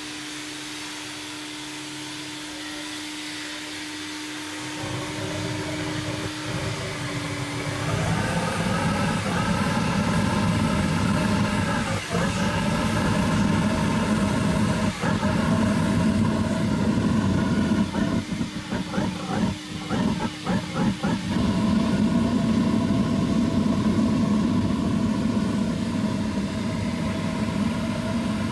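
Diesel-fired furnace burner with a vacuum cleaner as its blower: at first only the blower's steady whine, then the burner lights about five seconds in and builds to a loud, steady low rumble of burning diesel by about eight seconds. The rumble wavers unevenly for a few seconds past the middle before settling again.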